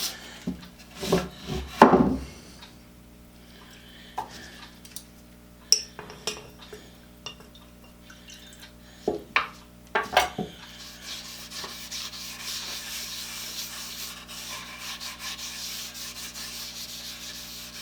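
An oil-soaked rag being rubbed over a wooden vise chop, with a few scattered knocks and handling clicks in the first half. About eleven seconds in, it settles into steady back-and-forth wiping.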